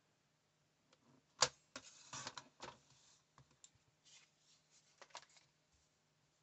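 Faint clicks and short rustles of patterned paper scraps being handled and cut down to size, with the sharpest click about a second and a half in.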